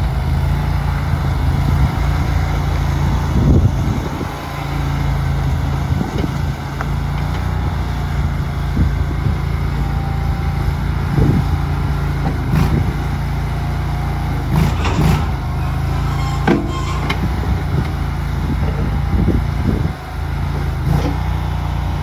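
IRL 10 stand-on mini tracked skid steer's engine running steadily as the machine is driven, with a few short knocks about halfway through.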